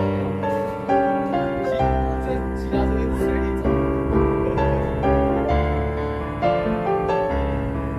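Background music led by piano or keyboard, with a steady beat and a bass line.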